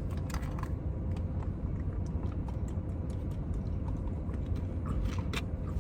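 Steady low hum with a faint constant tone, and scattered light clicks and taps throughout.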